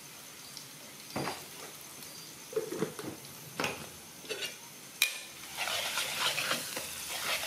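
A few clinks and knocks of a jar and utensils being handled, then, from about five seconds in, a metal spatula scraping and stirring in a steel wok as chopped aromatics sizzle in hot oil.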